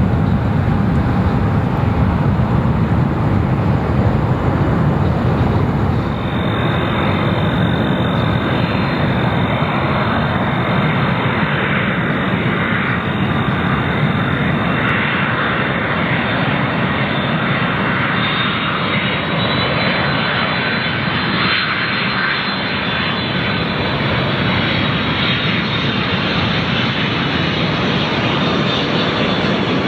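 Jet airliner engines running as the aircraft passes: a steady, loud rush of engine noise. A high whine joins about six seconds in and rises slightly in pitch later on.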